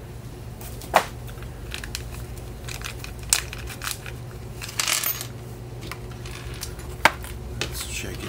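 A plastic parts bag crinkling as it is handled and emptied, with small hard parts clicking against each other and onto a table. Two sharp clicks stand out, about a second in and about seven seconds in.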